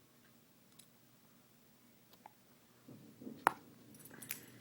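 A butterfly knife being handled: quiet handling rustle, then a single sharp metallic click about three and a half seconds in.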